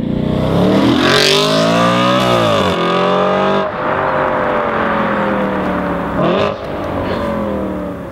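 Audi RS5 Cabriolet's V8 with an ASG aftermarket exhaust accelerating hard away, very loud. The revs climb and drop back at each upshift, about two and a half, three and a half and six and a half seconds in, and the sound fades slightly as the car pulls away.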